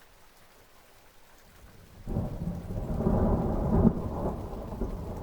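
Thunder rumbling over steady rain: faint rain at first, then about two seconds in a loud, deep thunder rumble sets in suddenly, peaks a second or two later and slowly fades.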